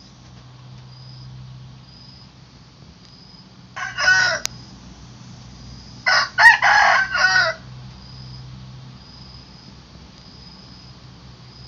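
Rooster crowing: a short crow about four seconds in, then a longer, broken crow about six seconds in.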